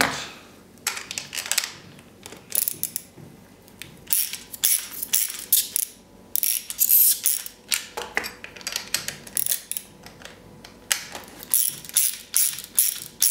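Hand socket ratchet wrench clicking in repeated short runs as it is swung back and forth, tightening nuts on bolts.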